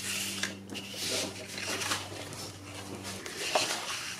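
Sheets of patterned scrapbook paper rustling and sliding as a stack is lifted off a cutting mat and another set laid down, with several soft swishes and light taps.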